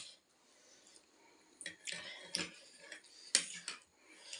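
Eating ramen noodles: a few sharp mouth clicks and short hissy slurps, starting about a second and a half in.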